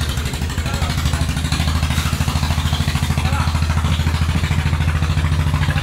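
An engine idling steadily with a fast, even throb, mixed with light clatter of plastic baskets being handled.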